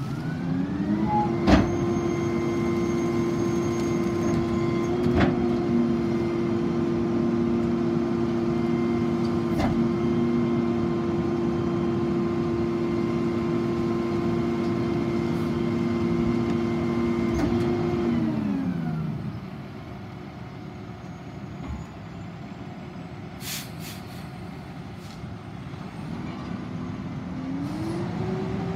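McNeilus rear-loader garbage truck revving up to run its hydraulic packer: a steady, raised engine and pump drone for most of the cycle, broken by a few sharp knocks, then dropping back to idle. Near the end the engine rises again as the truck pulls away.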